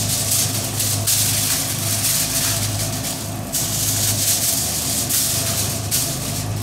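Food-truck kitchen equipment running: a steady low hum under a loud, even hiss, which dips briefly about three and a half seconds in.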